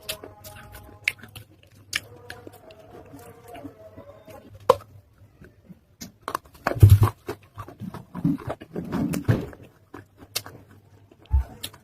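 Close-up chewing of water-soaked baked clay from an earthen matka pot. Scattered small crunches and clicks give way to louder wet chewing from about six to ten seconds in.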